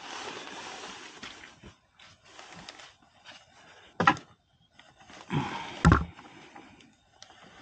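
Scraping and rustling, then two sharp clanks with a brief ring, about four and six seconds in, from hand tools and metal parts being handled while working on the machine.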